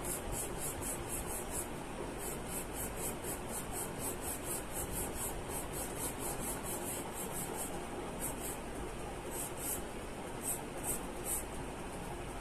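Charcoal pencil scratching across drawing paper in quick back-and-forth shading strokes, about four a second, in runs broken by short pauses, over a steady hiss.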